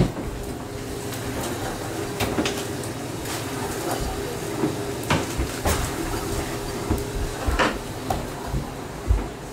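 Scattered knocks and clatters of household things being moved and handled during a search, over a faint steady hum.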